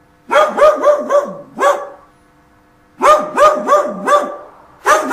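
Dog barking in quick runs of three or four barks, with short pauses between the runs.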